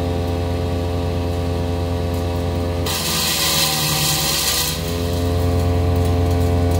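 Big Bear Power BBC-62 wood chipper running steadily. About three seconds in, a piece of wood is fed through and chipped for under two seconds, with a harsh grinding noise; the engine drops in pitch under the load and then recovers.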